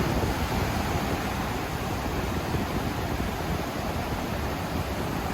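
Ocean surf washing on the beach with wind buffeting the microphone: a steady noisy rush with an uneven low rumble.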